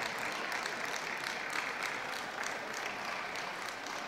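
Audience applause: many hands clapping steadily.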